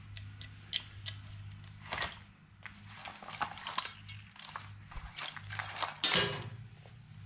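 Metal parts and hand tools clinking and knocking in irregular short strikes over a steady low hum, with a louder clatter about six seconds in.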